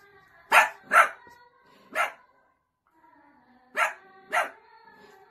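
Small dogs barking: three short, sharp barks in the first two seconds, then, after a brief pause, two more about half a second apart.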